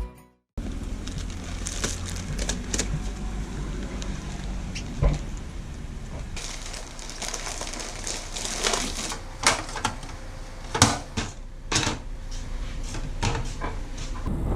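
Scattered clicks and knocks over a steady low rumble, with a few sharper knocks about halfway through and near the end.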